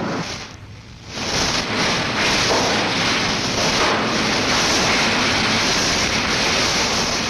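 Oil shale pouring out of the mine skip into a hopper: a steady rushing, rattling noise that sets in about a second in after a brief lull.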